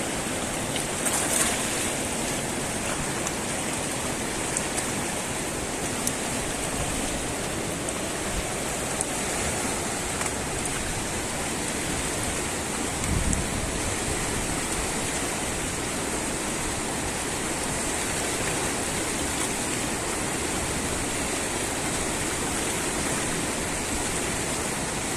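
Fast-flowing muddy river current rushing steadily, with a brief low thump about thirteen seconds in.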